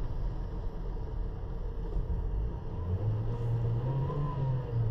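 Inside the cabin of a moving 1986 Toyota MR2, the mid-mounted four-cylinder engine and the road noise make a steady low rumble. About three seconds in, the engine note rises and strengthens as the car pulls.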